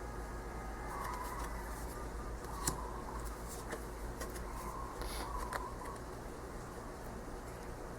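Quiet room with a steady low hum and a few faint, soft clicks of tarot cards being handled and moved from the deck.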